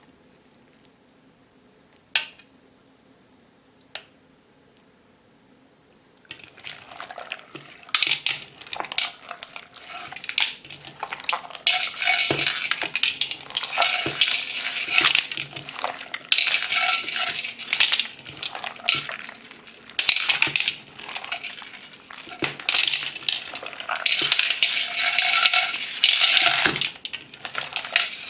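Slime packed with plastic pearl beads being squeezed and kneaded, the beads clicking and crackling against each other in repeated surges. Two single clicks come first, then the crackling starts about six seconds in.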